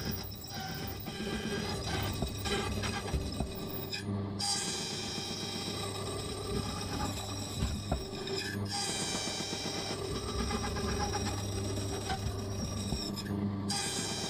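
Silca Lancer key-cutting machine running, its cutter grinding into a warded key blank with a steady low hum and a high metallic whine. The whine breaks off briefly about every four to five seconds as the cutting pass changes.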